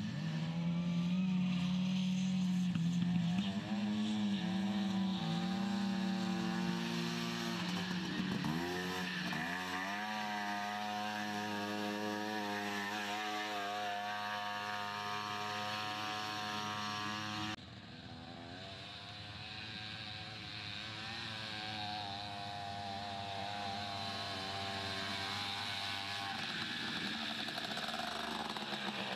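Small, high-revving engines of off-road racing buggies running hard on a dirt track. One engine dips in pitch and climbs again about eight seconds in. Past the middle the sound cuts abruptly to another buggy's engine, quieter at first and then rising.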